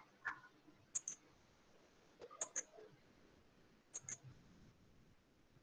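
Faint computer mouse clicks, mostly in quick pairs: three pairs spaced about a second and a half apart.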